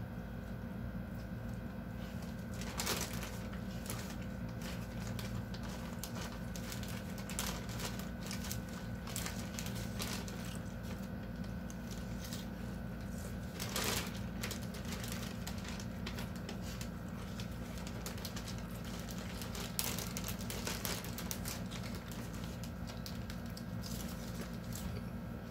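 Crunchy chewing of Caesar salad and crinkling of the plastic salad-kit bag, as small scattered clicks with a few louder crackles. A steady low hum runs underneath.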